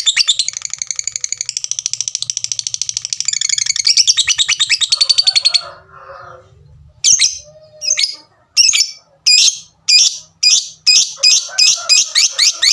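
Lovebird's long, rapid, high-pitched 'ngekek' chattering, which breaks off about five and a half seconds in; after a short pause it starts sharp 'tik' calls that come faster and faster, building toward the next chatter.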